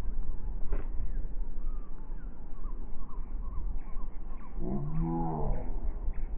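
A player's drawn-out, wordless cry lasting about a second, rising and then falling in pitch, during a grass volleyball rally. Before it come a faint knock of a hand on the ball about a second in, birds chirping and a low wind rumble on the microphone.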